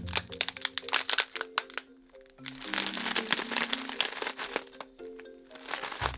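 Music with held low notes under a dense run of sharp crackling clicks, which thin out and die down about two seconds in, then build again.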